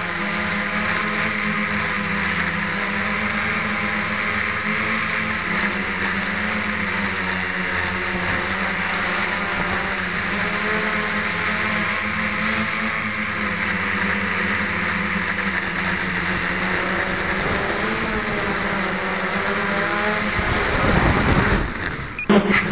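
An octocopter's eight electric motors and propellers buzzing steadily, heard from a camera mounted on its frame, with their pitches wobbling slightly as the motor speeds adjust. Near the end a louder, rougher rumble comes in as the craft comes down low over the grass.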